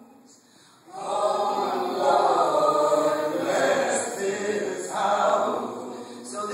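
Choir of men and women singing together, coming in about a second in after a brief hush.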